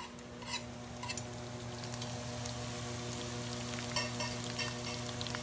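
Olive oil sizzling in a skillet as sliced garlic, anchovies, capers and red pepper flakes fry toward golden. The sizzle grows louder over the first two seconds and then holds steady, with a few sharp ticks, over a steady low hum.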